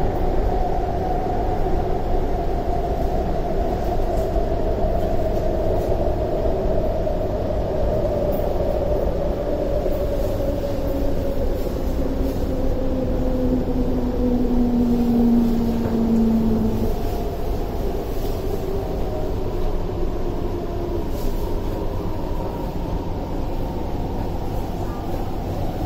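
Interior of a China-built MTR Tuen Ma Line C-train braking into a station. The traction motor whine falls steadily in pitch as the train slows, over a continuous rumble of wheels on rail, and a lower tone slides down about halfway through. The whine dies away a few seconds before the end as the train comes to a stand.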